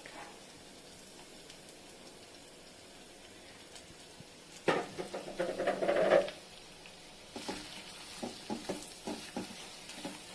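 Paneer cubes frying in ghee with a faint, steady sizzle. About halfway through, a loud second or so of stirring and scraping against the pan, then scattered light taps of stirring.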